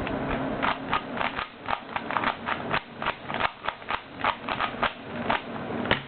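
Plastic layers of a Siamese Rubik's Cube being twisted quickly by hand, a rapid, uneven run of clicks and clacks, several a second.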